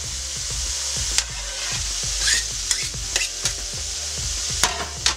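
Spiralised courgette and carrot noodles sizzling in olive oil in a frying pan on a medium heat, with a steady hiss as the vegetables give off their water. A metal utensil stirs them, making several sharp scrapes and knocks against the pan.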